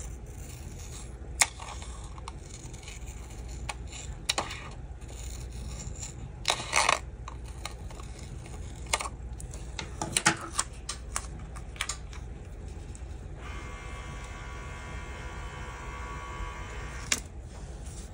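Small scissors snipping through a paper sticker sheet in several separate cuts, with clicks and rustles of the paper being handled. Near the end, a few seconds of steady rubbing as a hand presses the sticker down onto the planner page.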